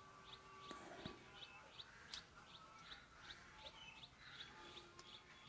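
Faint bird chirping: one short, high chirp repeated evenly about twice a second, with a few faint clicks.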